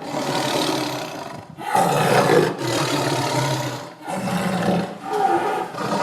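Tiger roaring: several rough roars in a row, each one to two seconds long, separated by short, sudden breaks.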